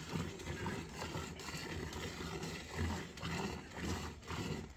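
A cow being hand-milked into a metal pail, the milk squirting into the bucket in short streams, over a steady low rumble that swells and fades.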